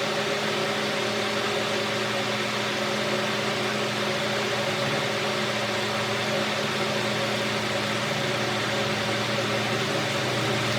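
Pickup truck engine running steadily at low speed, towing a trailer in reverse.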